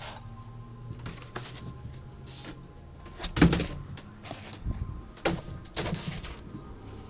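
Unpacking and handling noise: grey plastic stand parts and a cardboard box being picked up and knocked, with short rustles and a string of sharp knocks. The loudest knock comes a little over three seconds in, and a quick cluster follows between five and six seconds.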